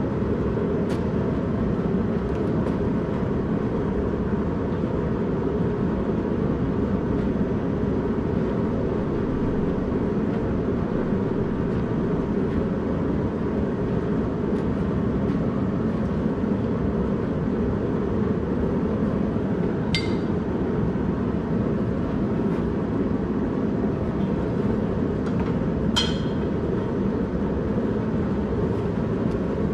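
Propane gas forge burner running with a steady roar. Two sharp metal clinks of steel on steel come about twenty seconds in and again some six seconds later.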